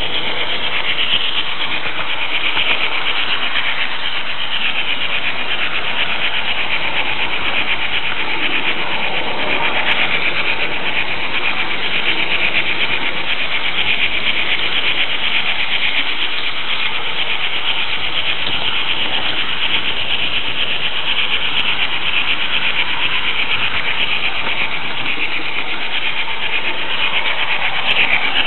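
Märklin H0 model train running along the track: a steady rolling and whirring noise of the wheels on the rails and the drive, picked up right on the moving car by a small camera's tinny microphone.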